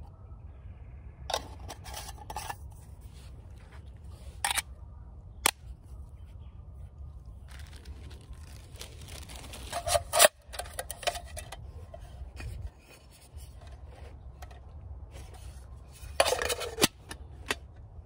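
Intermittent scrapes, rustles and sharp clicks of objects being handled, with the loudest cluster about ten seconds in, over a steady low rumble.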